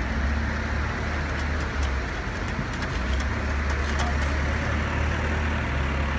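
Backhoe loader's diesel engine running steadily, a deep low drone with hiss above it, with a few scattered light clicks over it.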